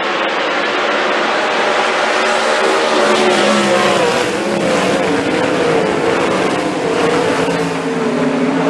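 410 winged sprint cars racing past on a dirt oval, their 410-cubic-inch methanol V8 engines running hard. Several engine notes waver and drop as the cars go by.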